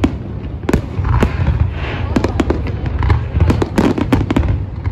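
Fireworks display: many shells bursting overhead in quick succession, sharp bangs and crackling over a continuous low rumble.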